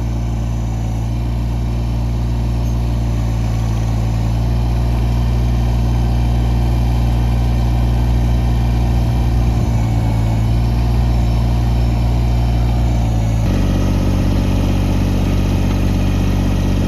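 Kubota BX24 compact tractor's three-cylinder diesel engine running steadily, with a sudden change in its note near the end.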